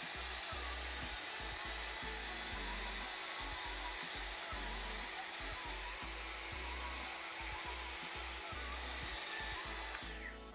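Bosch GKF 12V-8 cordless brushless trim router running free in the air, not cutting: a steady high whine over motor noise. Near the end it is switched off and winds down.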